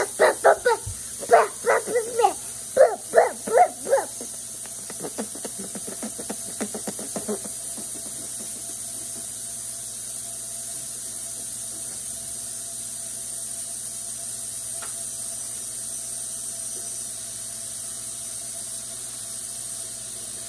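A rapid run of short, high yelping barks, three or four a second, loud for about the first four seconds and fainter until about seven seconds in. After that only a steady hiss remains.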